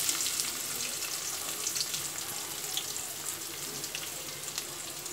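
Freshly added chopped onions sizzling in hot oil in a kadai: a crackling hiss that slowly dies down as the onions cool the oil.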